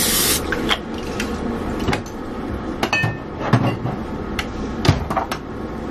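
Olive oil cooking spray hissing for the first half-second, then kitchen clatter: scattered knocks and clinks of containers and utensils being handled and set down, the loudest about three and a half and five seconds in.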